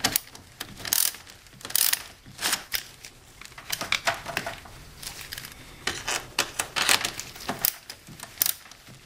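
Ratchet wrench clicking in short, irregular bursts as the clamp bolt on the car battery's negative terminal is loosened.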